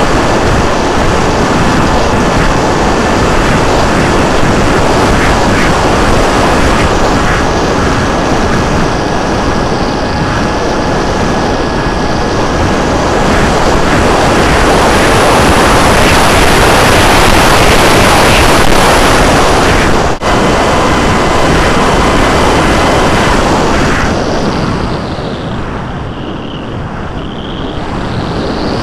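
Heavy wind rushing over an RC plane's onboard camera in flight, with the thin steady whine of the Multiplex Funjet's electric pusher motor and propeller under it. The rush eases for a few seconds near the end.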